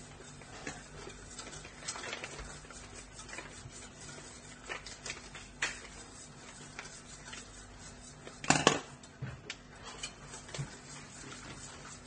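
A utensil stirring pancake batter in a metal bowl, with scattered light clinks and taps and one louder clank about eight and a half seconds in.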